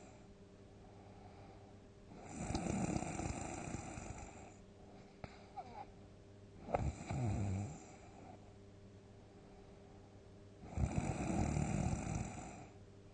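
A sleeping person snoring heavily: three loud snores a few seconds apart, the middle one shorter and opening with a sharp click.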